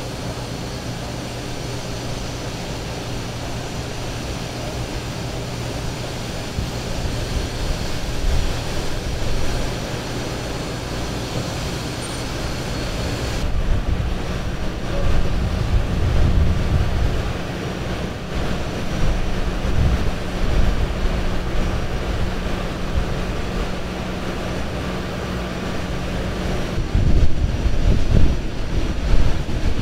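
Street traffic noise under a steady low engine hum. The background changes abruptly twice as the footage cuts from shot to shot.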